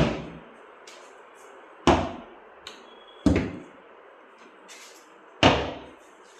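Four heavy hammer blows on wood, unevenly spaced and each ringing briefly as it fades.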